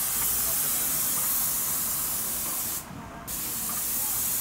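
Airless spray gun with a 410 tip, fed by a Graco UltraMax II 695 pump, hissing steadily as it atomises paint under high pressure. The hiss breaks off briefly about three seconds in, then starts again.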